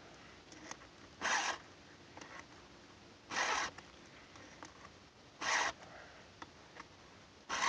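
Round chainsaw file in a guide holder being pushed across a saw chain's cutter tooth: four short rasping strokes about two seconds apart, a steady count of even strokes per tooth for a consistent sharpen.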